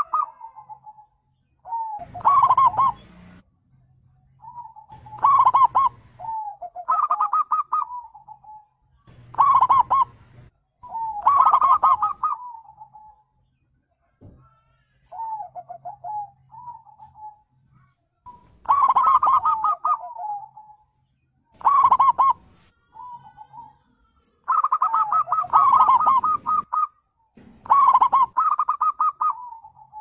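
Zebra dove (perkutut) singing: about a dozen phrases of rapid, rolling cooing notes, repeated every two to three seconds with short pauses between.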